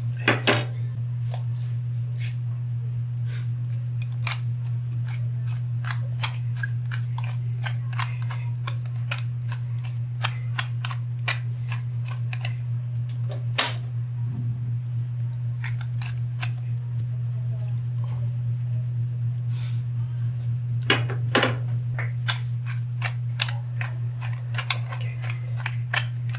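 A steady low hum with many small, irregular clicks and ticks over it, and a few louder knocks: one at the start, one about halfway and a pair about three quarters through.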